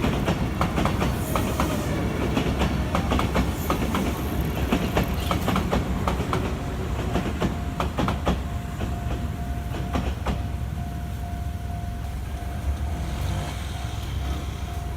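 Kintetsu Minami-Osaka Line train passing over a level crossing, its wheels clacking over the rail joints; the clacks thin out after about ten seconds. A steady high tone holds through the second half.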